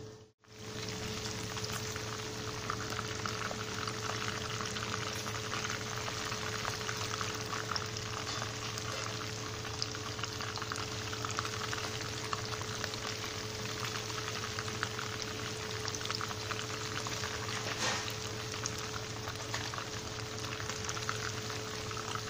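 Flour-and-breadcrumb-coated chicken wings deep-frying in hot oil: a steady crackling sizzle full of fine pops, over a constant low hum.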